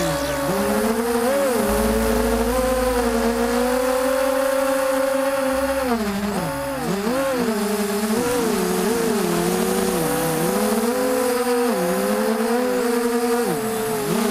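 Hexacopter's electric motors and propellers whining, heard from a camera on the craft itself. The pitch dips, rises and splits into several crossing tones again and again as the throttle changes through turns. A low wind rumble runs underneath.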